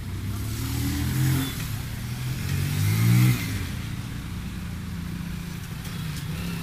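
Motorcycles and small cars passing on a wet street, engines accelerating and rising in pitch as they go by, loudest about three seconds in.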